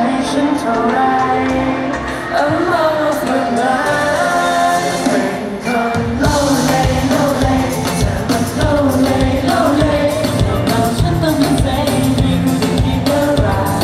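Live pop song: several male voices singing into microphones over a live band. The accompaniment is light at first, then drums and bass come in about six seconds in with a steady beat.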